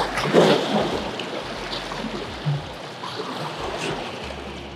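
River water washing and lapping against shoreline rocks, with a louder rush in the first second and a few small knocks.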